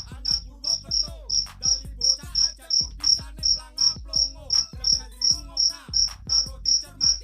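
A cricket chirping steadily, short high-pitched chirps about three a second, over fainter sounds lower down.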